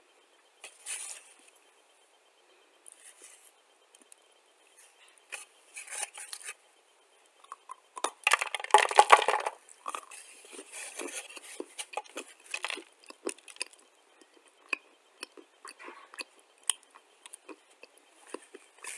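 Dry, pale clay crunching and crackling as a lump is bitten and chewed: a scatter of sharp clicks, with the loudest, densest crunching about eight to ten seconds in.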